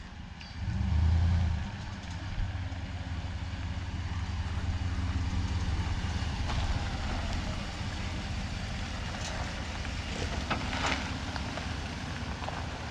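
Ram pickup truck driving on the road and pulling onto the gravel shoulder: a steady low engine and tyre rumble, with a brief louder low swell about a second in.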